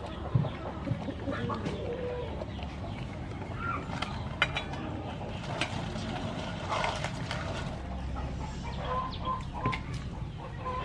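Chickens clucking, with short repeated calls near the end, over scattered light clicks and scrapes.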